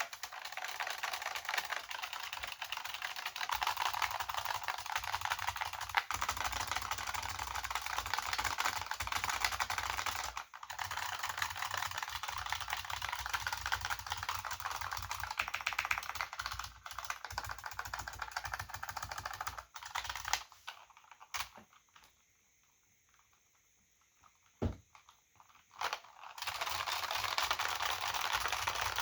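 AT&T KBD 305B-AA keyboard with buckling-spring switches and two-part PBT dye-sublimated keycaps being typed on quickly, a dense run of key clacks. About two-thirds of the way through the typing stops for a few seconds with only a few single keystrokes, then fast typing resumes near the end.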